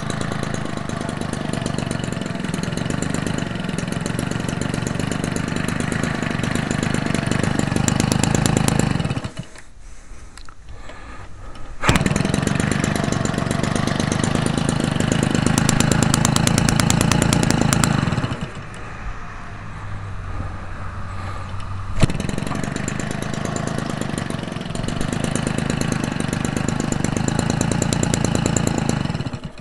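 McCulloch Mac 32cc two-stroke string-trimmer engine, converted for a radio-controlled plane, running an 18x6 propeller through a muffler with its spark-arrestor screen removed. The throttle is opened up and eased back several times: it drops back about 9 s in, picks up sharply about 12 s in, eases back again around 18 s, opens up near 26 s and drops once more at the end. It runs smoothly and strongly.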